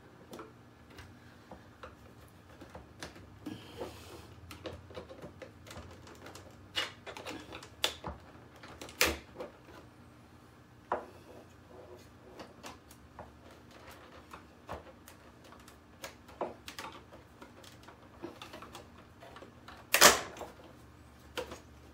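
Screwdriver prying at the plastic catches of an inkjet printer's front panel: scattered small clicks and knocks of metal on plastic, with one loud sharp click about twenty seconds in.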